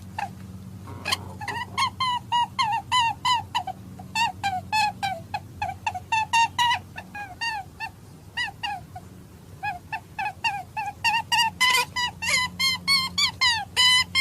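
Hare-hunting call recording: short, high, pitched calls repeated about three to four a second in runs, breaking off briefly near the start and again a little past the middle. A faint steady low hum runs underneath.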